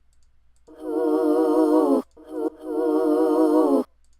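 A sampled sung vocal note played back twice, each held for over a second with a light vibrato, with a short break between.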